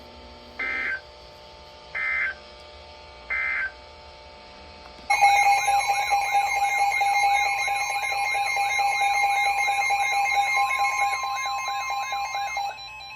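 Three short Emergency Alert System data bursts, the end-of-message code closing a NOAA Weather Radio warning. About five seconds in, a loud warbling electronic alarm starts, with a steady high tone coming in near the end: the weather radio's alert tones ahead of the next severe thunderstorm warning.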